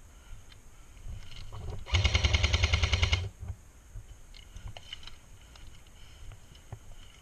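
Airsoft rifle firing one full-auto burst of just over a second, about a dozen shots a second.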